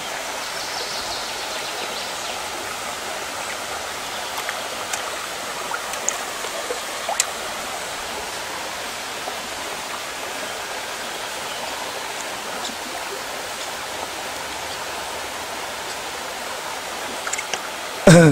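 Steady rushing of flowing water, with a few faint small clicks scattered through it.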